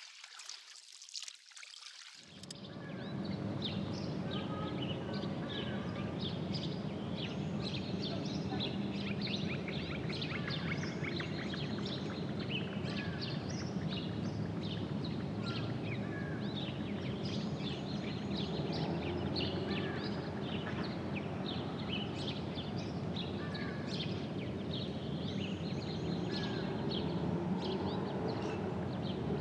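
Large flock of birds calling en masse: a dense chorus of many overlapping chirps and squawks over a steady low rumble. It sets in abruptly about two seconds in.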